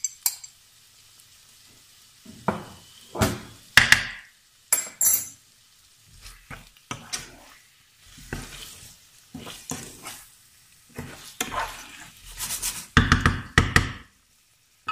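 A wooden spoon stirring and scraping diced chicken breast, onion and green pepper sizzling in a nonstick frying pan, in irregular strokes that are loudest near the end. A metal spoon clinks against a ceramic dish at the very start.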